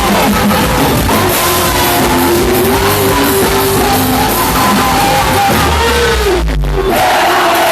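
Loud quadrilha junina music with a singer, sounding distorted at this volume.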